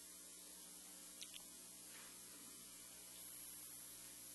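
Near silence: room tone with a low steady hum and a couple of faint clicks about a second in.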